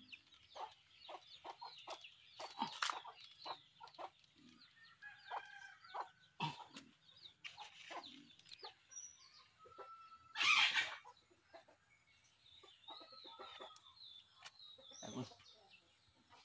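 Chickens clucking, with short scattered calls throughout and a louder, brief noisy burst about ten seconds in.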